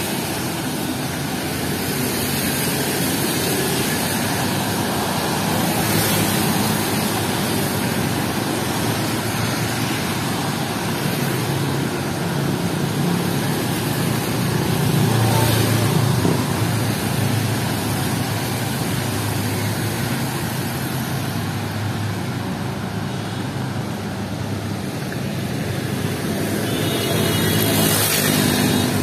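Steady roadside noise of traffic on a wet road, a constant hiss that swells slightly about halfway through and again near the end.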